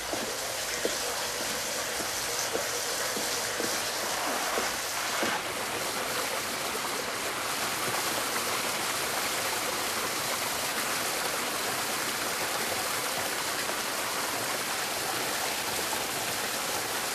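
Steady rushing of water pouring and running in a sewer tunnel. A few faint knocks sound in the first few seconds.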